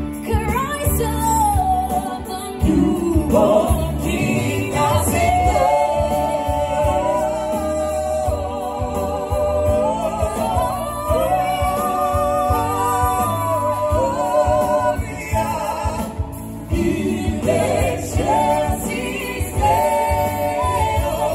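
A song: singing with a wavering vibrato over steady, held low accompaniment.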